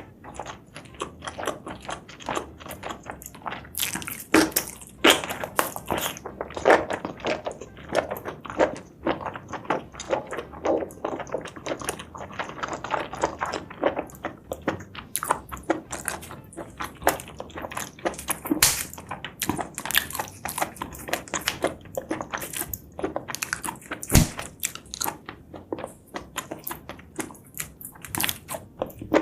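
Close-up eating sounds of spicy seafood and mushrooms being chewed and bitten, with rapid wet mouth clicks and smacks.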